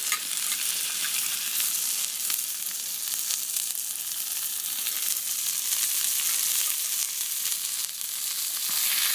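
A large piece of meat frying in plenty of rendered fat, a steady high sizzle with quick small crackles and spits throughout.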